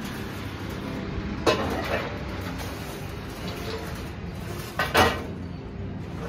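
Kitchenware clattering in two sharp knocks, about a second and a half in and again near five seconds, the second louder and doubled, over a steady low background noise.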